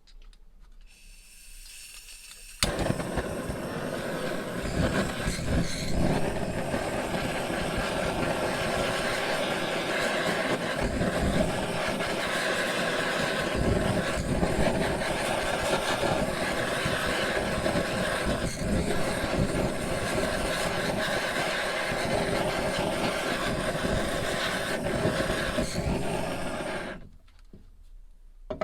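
A power tool runs steadily for about 24 seconds with a faint hum, starting suddenly a few seconds in and dying away near the end.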